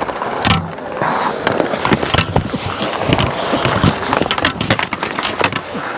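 Ice hockey skates scraping and carving on the ice, with many sharp clacks of sticks, pads and puck, as play crowds the goal crease close to the goalie's mic.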